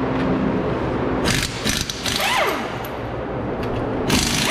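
A pneumatic impact wrench hammering lug nuts onto a car wheel. It runs in short rattling bursts about a second in and again near the end, and each burst trails off in a falling whine as the tool spins down.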